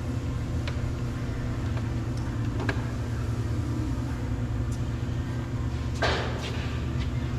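Steady low hum of a car engine idling, with a few light ticks and a short rustling scrape about six seconds in.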